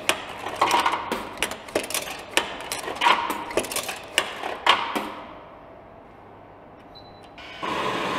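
Coins being pushed one after another into a vending machine's coin slot, clinking and clicking as they drop through the coin mechanism. After a lull there is a short faint beep, and then the hot-drink vending machine starts running with a steady mechanical noise as it begins dispensing.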